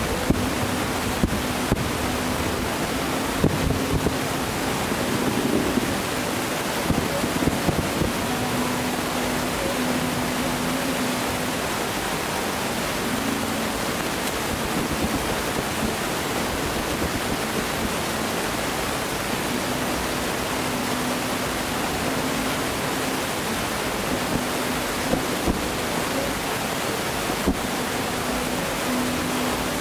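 Distant aerial fireworks bursting as scattered sharp pops and bangs, most in the first several seconds and again near the end, over a steady rushing noise.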